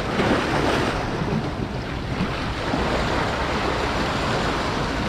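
Sea waves washing and breaking over rocks along a rocky shoreline, a steady rush of surf.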